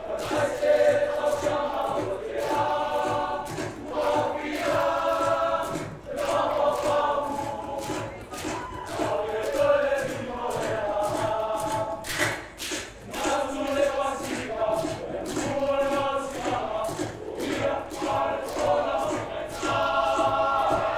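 A group of young men singing a Samoan song together in chorus, with sharp rhythmic clapping running through the singing.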